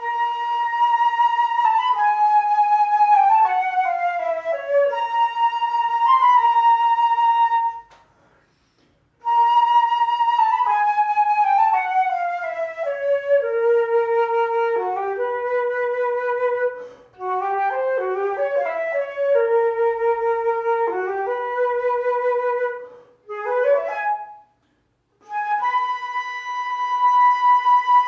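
A Yamaha instrument that is under repair plays a slow, flute-like melody in phrases separated by short pauses.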